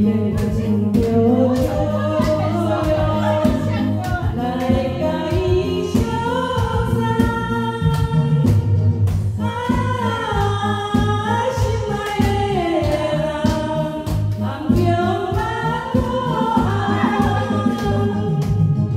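Karaoke music: a backing track with a steady beat and bass, with a woman singing a melody over it through the microphone.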